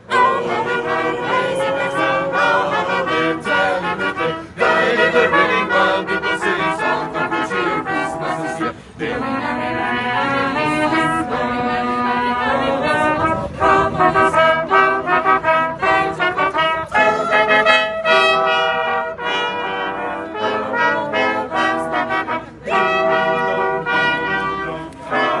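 Christmas music with brass instruments carrying the melody in held notes, broken by a few short pauses.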